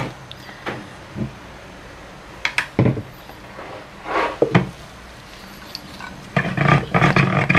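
Stick blender being set into a plastic bucket of soap batter, with several light knocks and clunks, then a short burst of the stick blender running about six seconds in.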